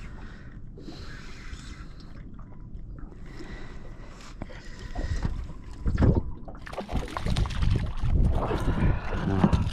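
A hooked flathead splashing and thrashing at the surface beside a small boat, quiet at first and growing loud from about halfway, with dense splashing and line-handling knocks in the last few seconds as the fish is drawn in by hand.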